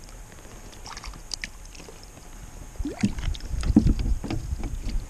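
A small brook trout splashing lightly at the surface beside the kayak as it is reeled in. About three seconds in, a run of louder low knocks and thumps with rustling follows as the fish and line are handled in the plastic kayak.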